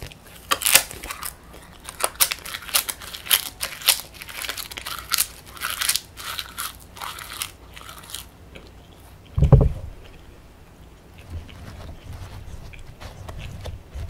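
Close-up crisp crunching and chewing of a bitten-off piece of edible coloured paper, with many sharp crackly crunches for about eight seconds. One loud dull thump follows a little past the middle.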